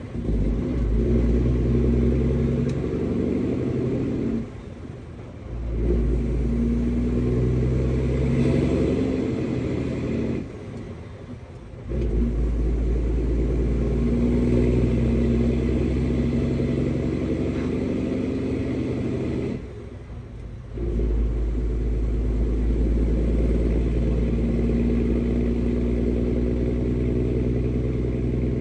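Semi-truck's diesel engine heard from inside the cab as the truck moves slowly, its note rising and falling. The sound drops away briefly three times.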